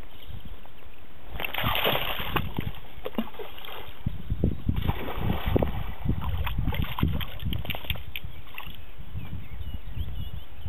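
Border collie swimming and paddling in open water: splashing and sloshing in irregular bursts about a second and a half in and again from about five to eight seconds, over a steady low wind rumble on the microphone.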